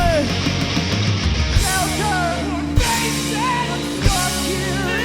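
Rock band playing live with electric guitar, in a short passage between sung lines, with bending melodic lines through the middle and two sharp hits about three and four seconds in.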